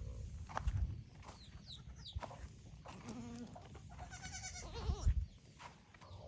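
Black Bengal goats bleating: a short low bleat about three seconds in, then a higher, longer bleat about four seconds in, with a few dull thumps around them.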